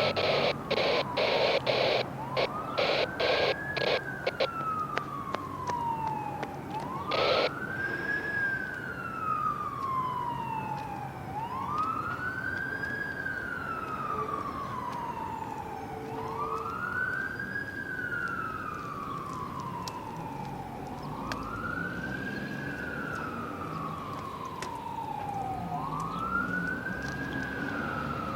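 Electronic emergency-vehicle siren on wail, each cycle rising quickly and falling slowly, about every four and a half seconds. It is answering an emergency call. In the first couple of seconds it is overlaid by rapid short blasts, and a few more come up to a longer one about seven seconds in.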